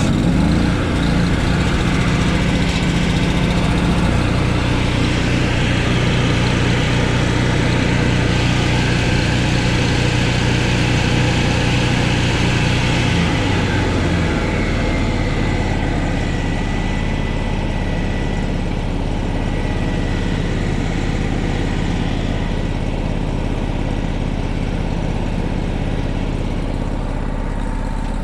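Engine of an engine-driven welding machine running steadily just after starting. About 14 seconds in its low hum weakens and the level drops slightly, as it settles.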